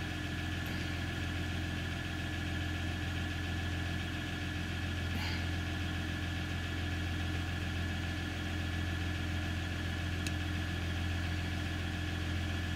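A steady low mechanical hum, like an idling engine, with a few constant tones above it, unchanging throughout.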